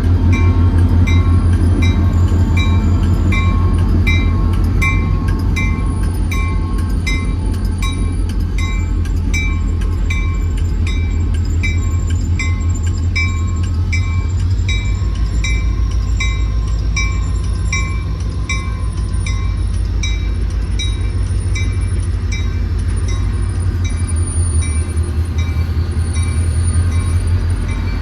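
Train rolling by with a steady low rumble, under a grade-crossing bell ringing about twice a second.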